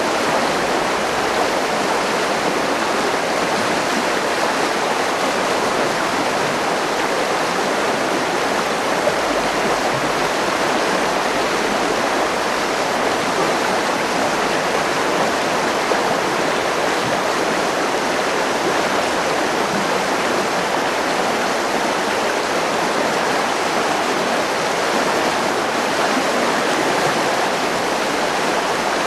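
River water rushing steadily over rocks, an even, unbroken wash of noise.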